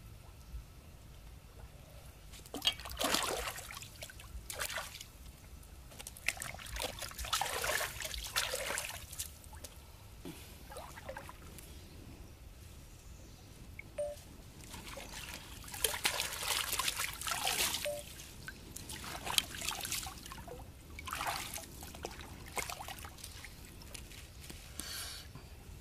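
Water trickling and splashing in several separate bursts of one to three seconds each.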